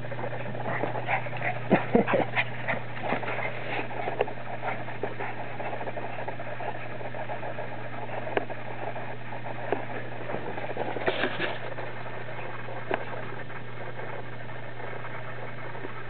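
Pomeranian scampering about during a game of fetch: quick clicks and taps on concrete, many in the first few seconds, then a few scattered ones, with a small cluster about eleven seconds in, over a steady low hum.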